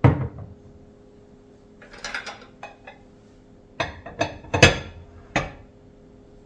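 Kitchen things being handled and set down on a hard surface: a knock, a short clatter about two seconds in, then four sharp knocks over the next second and a half.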